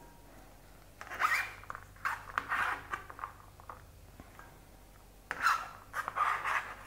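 Kitchen knife scraping chopped celery across a cutting board and into a stainless steel mixing bowl, in three short bursts of scraping.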